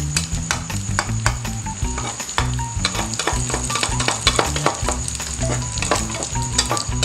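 Cabbage-and-egg patty sizzling in a frying pan, with a slotted spatula scraping and tapping against the pan many times as it presses the patty into a round.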